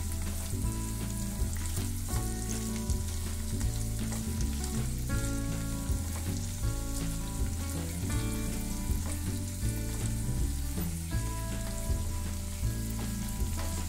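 Oil sizzling steadily as diced boiled potatoes fry with onion and spices in a pan, the potatoes being crisped, with occasional stirring by a silicone spatula. Background music with a steady beat plays underneath.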